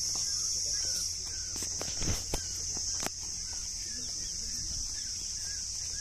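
Steady high-pitched insect drone, with a few clicks and rustles of footsteps through dry grass about two to three seconds in.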